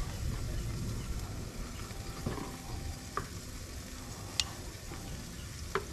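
Linguiça sausages sizzling steadily on a grill, with a few sharp clicks of a knife and grill fork on a wooden cutting board as a grilled sausage is cut in half.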